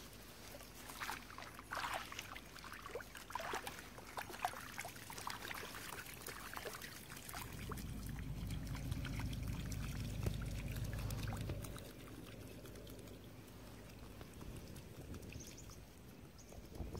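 Footsteps splashing and squelching through wet mud and shallow puddles, as many small irregular splashes through the first half. A low rumble comes in for a few seconds in the middle.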